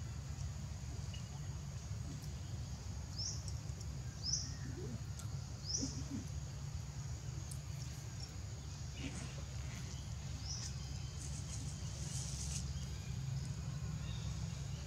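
Outdoor ambience: a steady low rumble with several short, high, rising bird chirps a few seconds apart, and a few faint rustles in the dry leaves.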